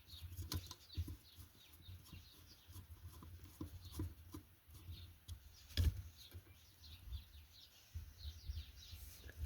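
Faint clicks and rustling of hands handling car-amplifier wires and connectors, with one sharper click a little past halfway. Small birds chirp faintly in the background.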